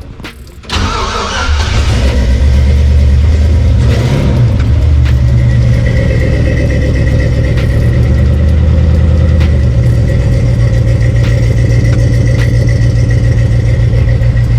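1966 Chevrolet C10 pickup engine catching about a second in, then running steadily and loudly through its newly fitted mufflers and rear exhaust.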